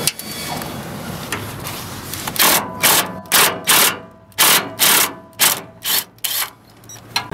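Cordless impact wrench run in about nine short trigger bursts, starting about two seconds in, loosening the bolts that hold the pickup's bed to the frame.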